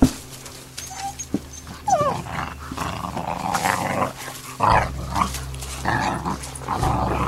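Young hunting dogs growling and grappling as they play-fight, in rough repeated bursts from about two and a half seconds in. A short falling whine comes about two seconds in, and a sharp knock sounds right at the start.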